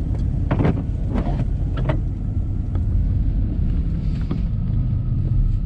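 Steady low rumble of a 1990 Chevy 3/4-ton 4-wheel-drive pickup driving on snowy streets, heard from inside the cab. A few brief knocks come in the first two seconds.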